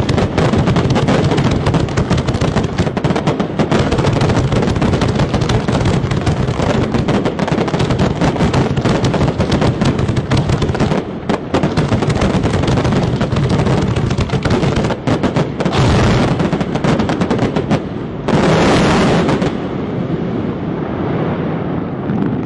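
Fireworks going off in a rapid, unbroken string of bangs and crackles. A short hissing burst comes near the end, then the bangs thin out and the level drops.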